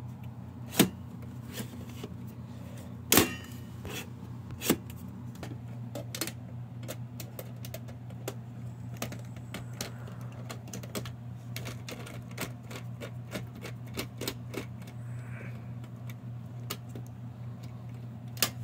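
A hand screwdriver turning a screw in a sheet-metal computer case drive bay: many short metallic clicks and ticks, with a few louder knocks in the first five seconds, over a steady low hum.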